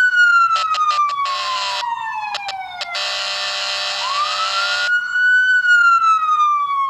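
Whelen 295HFSA1 electronic siren sounding its wail tone, which climbs and then slowly falls twice. It is broken by the siren's air horn tone: a few quick blasts about a second in, then a longer blast of nearly two seconds in the middle.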